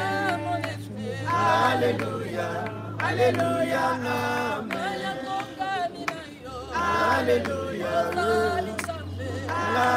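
A group of mourners singing together without accompaniment, several voices in phrases of a couple of seconds with short breaks between them.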